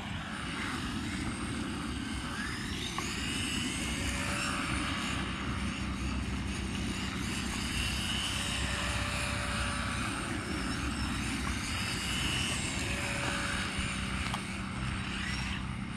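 Electric motors of two small RC buggies, a 1/14-scale Team Associated Reflex 14B and a 1/18-scale WLToys A959B, whining as they race, the pitch rising and falling with the throttle. A steady low rumble runs underneath.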